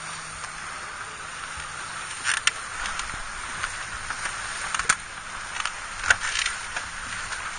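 Turbulent tidal water rushing and slapping against the hull of a small wooden day sailer, a steady hiss broken by three or four sharp slaps.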